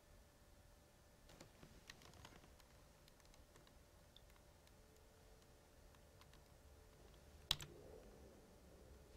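Near silence with faint scattered clicks in the first few seconds and one sharper click about seven and a half seconds in.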